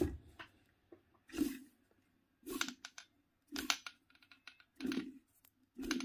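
Rotor of an Askoll brushless washing-machine motor turned slowly by hand, driven as a generator: five brief clicking, rubbing strokes about a second apart as the hand pushes it round.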